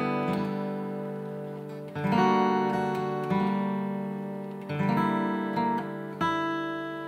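Background music: an acoustic guitar strumming chords, each struck and left to ring and fade before the next, with a new chord about every one to one and a half seconds.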